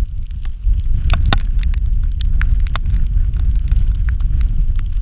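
Wind buffeting the microphone: a steady low rumble, with scattered sharp clicks and ticks over it.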